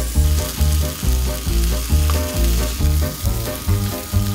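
A tied beef fillet searing in hot oil with rosemary in a nonstick skillet, sizzling steadily. Background music with a steady bass line plays over it.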